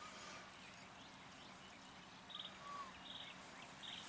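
Faint birdsong in the background: a few short whistled notes and buzzy chirps, mostly in the second half.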